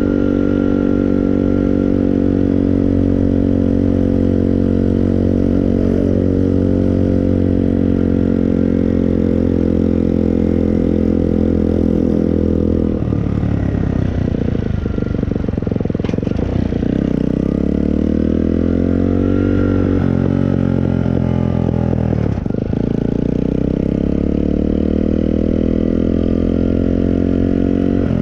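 Moped engine running at a steady pitch for the first half, then its pitch falls and climbs again a few times as the throttle is eased off and opened.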